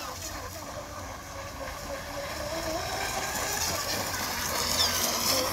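Radio-controlled speedboat's motor running out on the water: a steady whine that wavers up and down in pitch as the boat changes speed.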